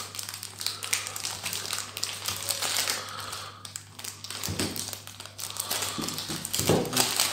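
Clear plastic wrapping crinkling and crackling as it is pulled off a new 5x5 speed cube, with irregular light taps and a couple of firmer handling knocks in the second half.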